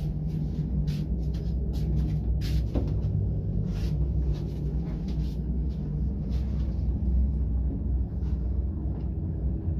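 Passenger lift running: a steady low rumble of the car and its machinery, with scattered light clicks and rattles.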